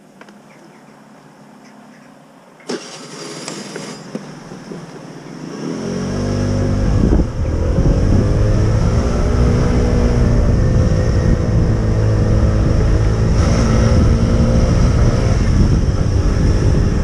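Motor scooter engine starting about three seconds in, then running loud as the scooter pulls away and rides on, with a low rumble from about six seconds.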